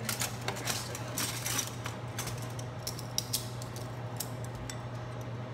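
Cardboard box of plastic spoons being opened and handled: a run of sharp clicks and rattles, busiest in the first two seconds and sparser after, over a steady low hum.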